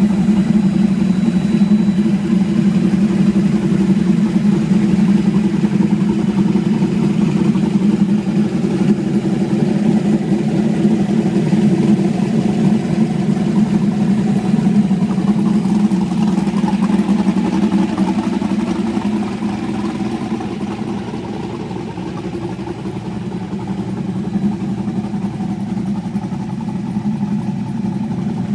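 Ultra4 race car's LSX454 V8 engine idling steadily, a little quieter for a few seconds near the end.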